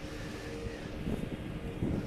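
Wind buffeting the microphone in gusts, over a low steady hum like a far-off engine.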